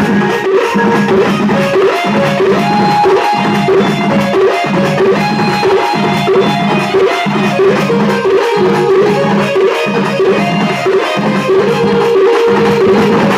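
Loud music with a steady, driving drum beat and percussion, played through a DJ sound system.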